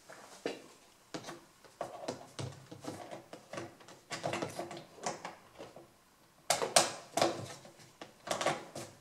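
Hands working a rubber hose sleeve and its clamp loose on an ATV: an irregular run of small clicks, rubs and knocks, the loudest knocks about two-thirds of the way through.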